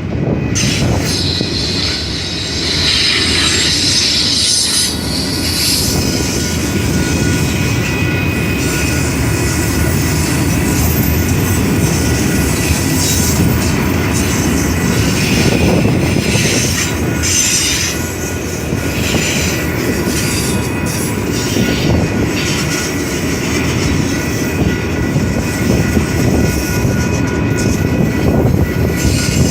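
Union Pacific train rolling past on the rails with a continuous heavy rumble of wheels and cars, and thin steady wheel squeal running through it.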